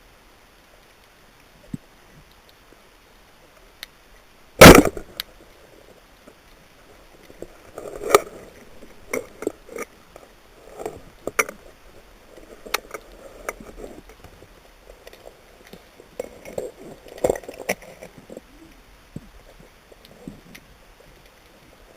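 Underwater, a speargun fires with one loud, sharp thump about five seconds in. Scattered knocks and clicks follow for about ten seconds.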